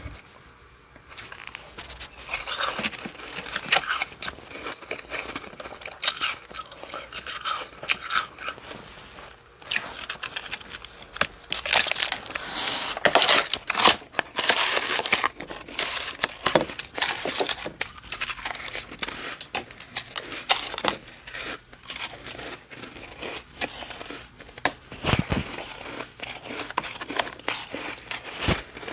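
Freezer frost being scraped and crushed close to the microphone: a dense, continuous run of crisp scraping and crunching with many small sharp clicks.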